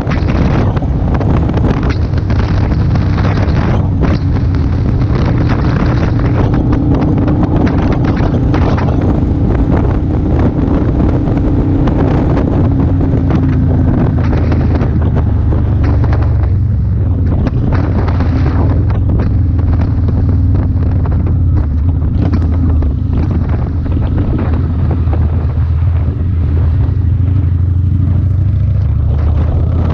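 Motorcycle engine running steadily at road speed, its pitch drifting slightly, with heavy wind buffeting on the microphone.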